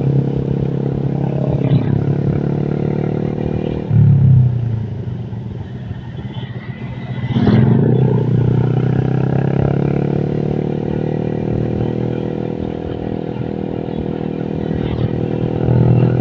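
Honda Vario scooter engine, bored up with a 55 mm piston, running under way with a steady drone. It surges about four seconds in, eases off, and picks up again near eight seconds as the throttle changes.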